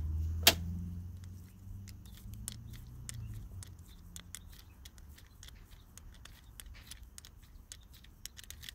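Small irregular metal clicks and taps of hand tools and screws being handled while the screws go back into a lawnmower carburetor, with one sharp click about half a second in. A low hum fades out over the first few seconds.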